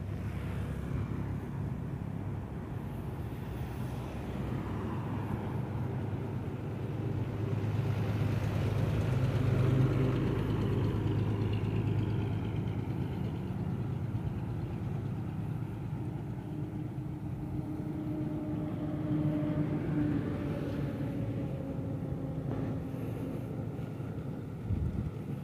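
Road traffic passing close by on a highway: a steady low rumble of engines and tyres that swells as a large truck goes past about ten seconds in, then settles back, with a smaller swell from another vehicle near the twenty-second mark.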